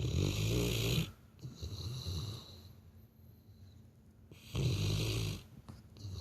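Labrador retriever snoring in its sleep, sounding much like a person: a loud snore at the start, a softer one after it, and another loud snore about four and a half seconds in.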